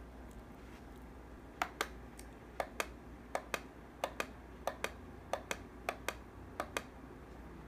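Plastic button on top of a ROCAM 1008i alarm clock pressed eight times in a steady rhythm. Each press gives a double click, one on the way down and one on the way back up, starting about a second and a half in.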